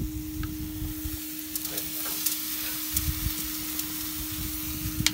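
Marinated chicken breast sizzling on a hot grill: a steady hiss with scattered crackles, thickest in the middle, over a steady low hum.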